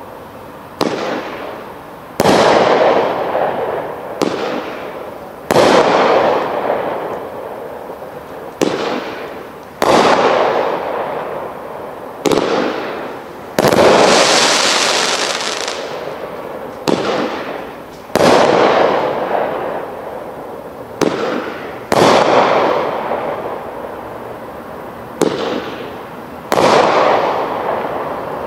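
Sky King Elite 'Cheat Code' 42-shot 500 g firework cake firing shot after shot, about one every one and a half seconds. Each bang trails off into a fading crackle before the next, with a denser burst of crackling about halfway through.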